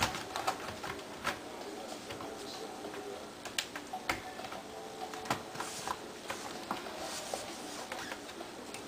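Light, irregular clicks and taps from handling a laptop and its small parts during a hard drive swap.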